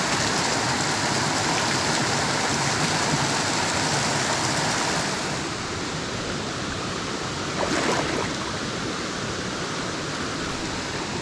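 Steady rush of a mountain stream's fast water and falls, an even hiss with no distinct events. It turns a little quieter about halfway through, with one brief louder swell shortly after.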